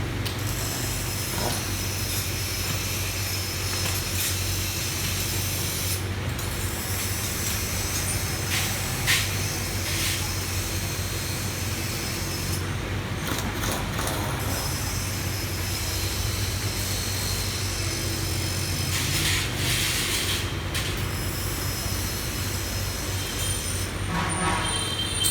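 A machine running steadily with a low hum and hiss, and a sharp click about nine seconds in.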